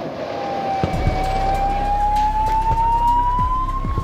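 An emergency-vehicle siren wailing: one slow tone that rises steadily, peaks near the end and starts to fall again. Under it runs a low steady hum with a few short deep thuds.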